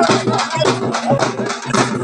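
Drums beaten in a fast, steady rhythm, with the voices of a crowd over them.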